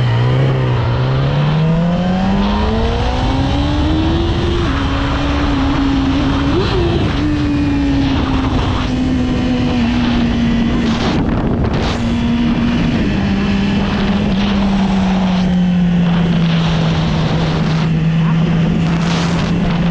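2014 Yamaha R6 inline-four sport-bike engine accelerating, revs climbing for about four seconds before an upshift drops them, then running at steady, slowly easing revs with a second drop about 13 seconds in. Wind rushes over the mic throughout.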